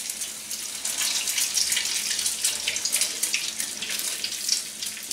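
Egg-dipped, milk-soaked bread slices frying in hot oil in a pan: a steady sizzle full of crackles and pops, growing louder about a second in as more bread goes in.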